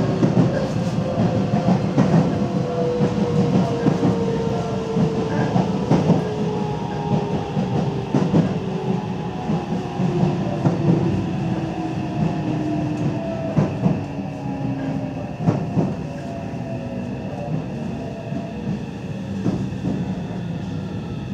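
Nagoya Municipal Subway 7000 series electric train running, heard from inside the car. Its inverter-driven traction motors whine in several tones that glide steadily down in pitch as the train slows, with wheel clicks over rail joints beneath the running noise. It has the same running sound as the Meitetsu 300 series.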